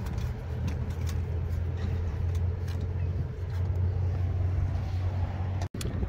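Steady low mechanical hum, with a few faint clicks over it.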